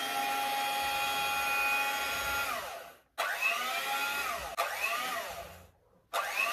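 Electric hand mixer beating eggs: a steady motor whine for about two and a half seconds that winds down and stops, then three shorter runs, each whirring up and spinning down again.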